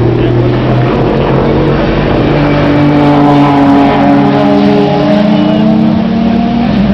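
Racing car engine running hard at high revs, its pitch holding steady and then stepping up about six seconds in.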